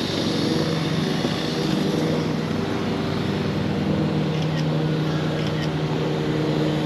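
An engine running steadily with an even, droning hum.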